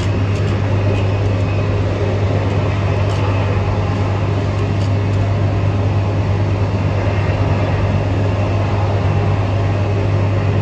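A steady, loud low mechanical hum with an even rush of noise over it, unchanging throughout.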